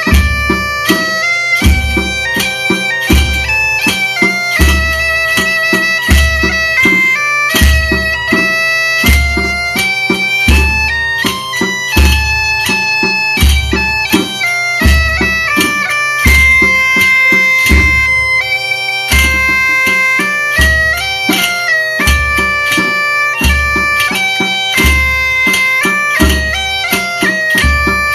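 Galician bagpipe (gaita) playing a melody over its steady drone, accompanied by a bass drum (bombo) beating a regular slow pulse and snare drums.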